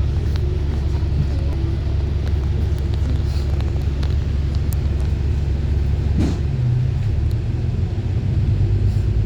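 Steady low rumble of a moving road vehicle, with the pitch of the rumble shifting about six and a half seconds in.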